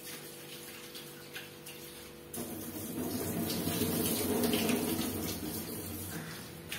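Kitchen tap running into a steel bowl as raw prawns are rinsed by hand, the water starting about two seconds in after a few light knocks of the bowl.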